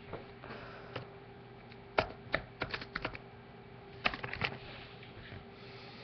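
Typing on a computer keyboard: two short bursts of key clicks, the first about two seconds in, the second about four seconds in.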